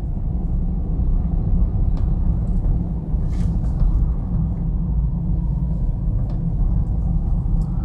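Steady low rumble of a car driving, engine and road noise heard from inside the cabin, with a few faint clicks.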